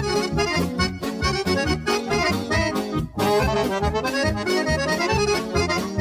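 Accordion-led Serbian folk dance music with a steady bass beat. There is a momentary drop in loudness about three seconds in.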